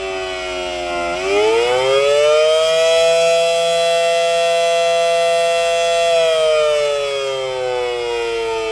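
Federal Signal Model 7AT outdoor warning siren sounding two notes together. It winds down, winds back up over about two seconds from about a second in, holds a steady pitch for about three seconds, then winds down again.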